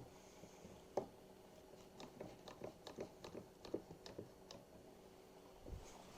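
Faint scattered clicks and light taps: a sharp click about a second in, then a quick irregular run of small clicks between two and four and a half seconds, over a faint room hum.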